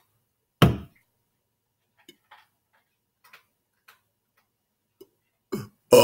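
A man belching near the end, a weak belch forced out while he is still swallowing food. About half a second in there is a brief loud sound, with a few faint clicks between the two.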